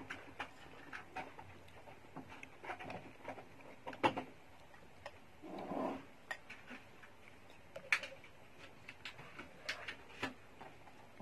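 Metal spoon and fork clinking and scraping against a ceramic soup bowl in scattered irregular ticks, two sharper clinks standing out, with a short eating noise a little past the middle.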